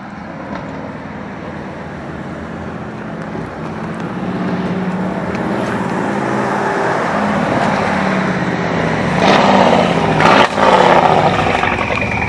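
Mercedes-AMG E63 S with a straight-piped 5.5-litre twin-turbo V8 approaching, its exhaust growing steadily louder. It accelerates hard about nine seconds in, with a brief dip in the sound partway through, and drives past.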